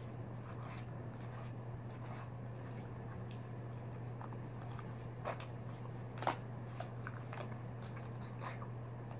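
Eating from a plastic takeout tray: a fork clicking against the tray a few times, sharpest twice about five and six seconds in, with soft chewing, over a steady low hum.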